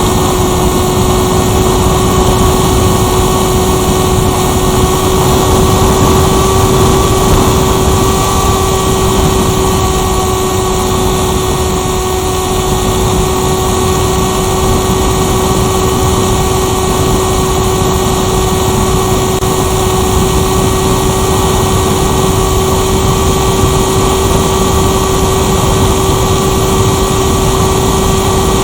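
Electric motor and propeller of a Firstar 2000 RC motor glider running at steady power in flight, a constant hum with a higher whine above it, over loud wind rush on the onboard camera.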